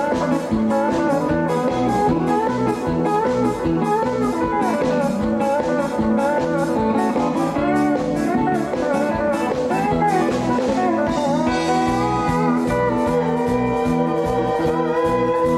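A live country band plays a fast instrumental tune over a steady, even beat, with a steel guitar taking the lead melody.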